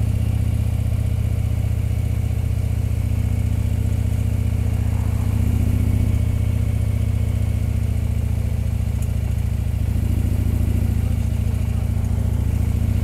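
Touring motorcycle's engine running at low road speed: a steady low rumble that swells slightly a few times as the throttle is opened.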